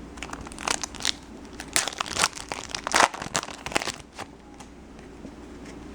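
Crinkling of a trading-card pack's foil wrapper as it is torn open and handled: a run of sharp crinkles and rips lasting about four seconds, then quiet.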